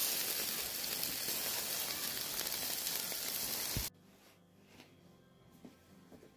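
Boerewors and short ribs sizzling on a braai grid over hot coals, a steady hiss that cuts off abruptly about four seconds in, leaving only a few faint clicks.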